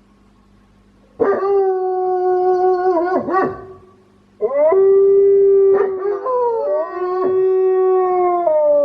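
Wolfdog howling at home, its howl odd and strongly quirky: a long, steady howl starting about a second in that breaks into quick wavering notes at its end, then after a short pause a second long howl with a sudden pitch break midway, sliding down at the close.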